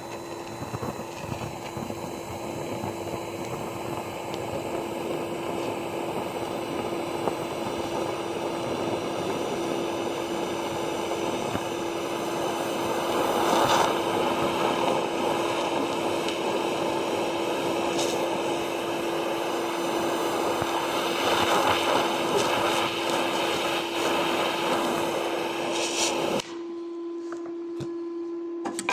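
TIG welding arc fusing a steel bolt: a steady hiss that stops abruptly near the end, over a steady hum that carries on after it.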